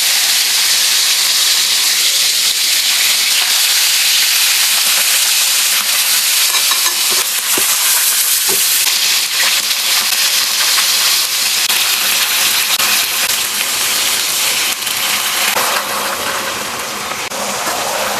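Food sizzling in hot oil in a pan, a steady loud hiss, with a few faint knocks about halfway through.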